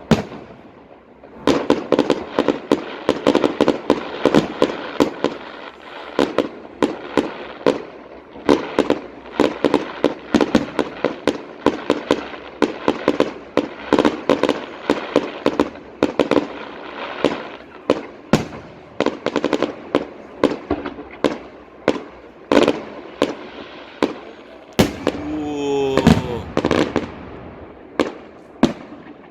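Fireworks display: a dense, continuous string of sharp bangs and crackling bursts, several a second.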